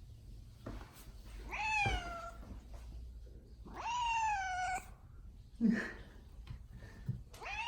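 Domestic cat meowing: two long meows that rise and then fall in pitch, with a third starting near the end. Insistent, demanding meows of a cat trying to ask for something.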